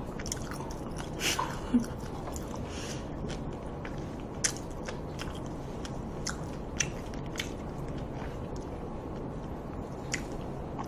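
A person chewing a mouthful of food close to the microphone: irregular small wet mouth clicks over a steady low hum.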